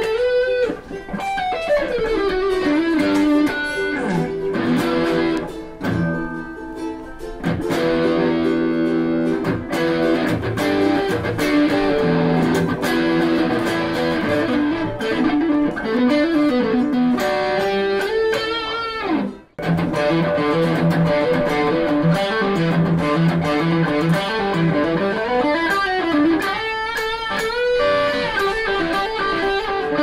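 PRS DGT electric guitar played through a Mesa Rectoverb 25 combo amp: fast lead runs with many string bends and slides. There is a short break about twenty seconds in.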